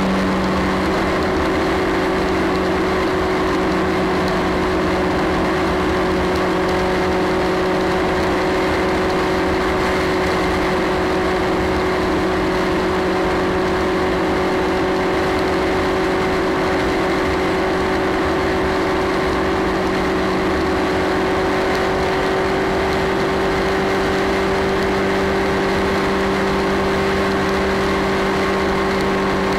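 Motorcycle engine running at steady cruising revs at motorway speed, with constant wind and road noise.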